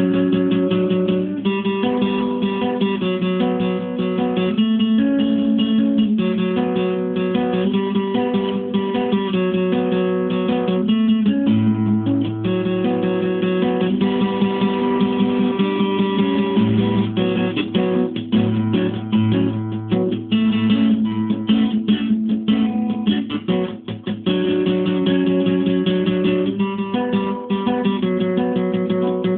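Acoustic guitar played solo: chords strummed and picked, changing every second or two, with deeper bass notes in the middle stretch.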